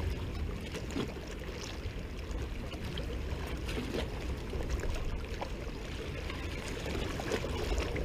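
Seawater lapping and sloshing against rocks at the water's edge, a steady wash flecked with small splashes.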